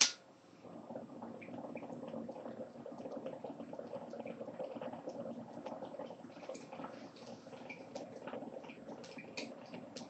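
A sharp click at the very start, then water bubbling steadily in a glass bong as smoke is drawn through it, from about a second in.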